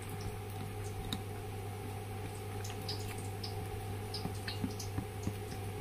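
Chopped shallots, garlic, chillies and spring onions scraped with a spoon off a plastic plate into a plastic bowl of soy sauce: faint, scattered ticks and soft squishes over a steady low hum.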